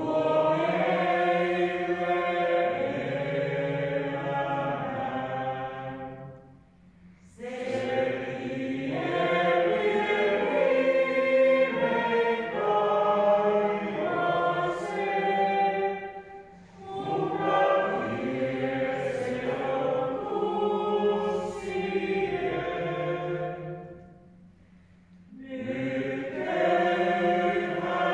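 Singing during a church service, a hymn or sung liturgy, in long phrases with short breaks between them, about three times.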